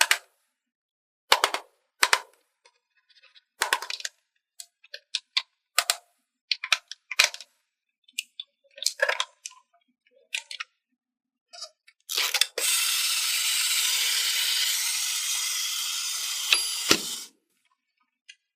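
Small plastic toy picnic pieces being handled, with a string of sharp clicks and taps. About twelve seconds in, a steady rushing hiss runs for about five seconds and ends with a knock.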